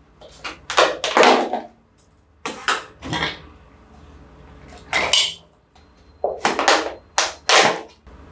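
Thin plastic takeaway cups and their lids being handled, opened and emptied into a bowl, in about five short noisy bursts.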